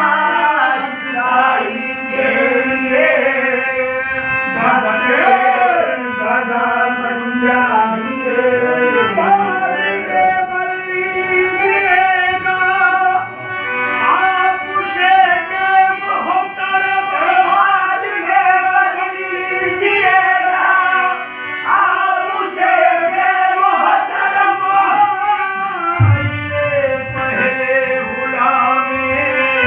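Qawwali: men's voices singing a devotional song in long, bending melodic lines over a harmonium's held notes. A lower note joins near the end.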